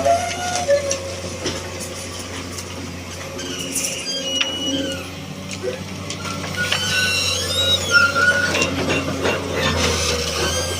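Excavator engine running steadily under load, with scattered knocks and short high squeals from the machine working, most of the squealing in the second half.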